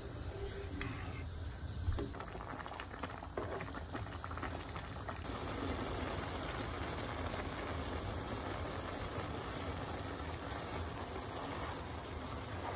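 Pot of pulao rice and peas boiling in spiced water: a steady bubbling and hissing as the water cooks down into the rice, with a single knock about two seconds in.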